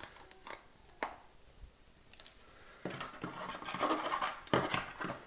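Freeze-dried meal pouch rustling and crinkling as it is handled and folded. There are a few sharp crackles in the first half, then busier rustling from about three seconds in.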